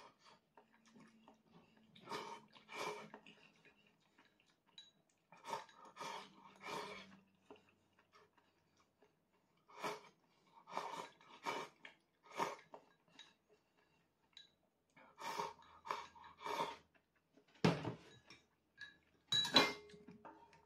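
A person slurping instant miso ramen noodles from a bowl with chopsticks, in short runs of two to four slurps every few seconds. Near the end come two sharp knocks of tableware against the pot, the second with a brief ring.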